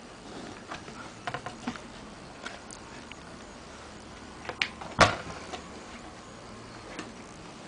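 Handling noise from a small cardboard box being turned and moved about: a scatter of light clicks and taps, then one sharp knock about five seconds in.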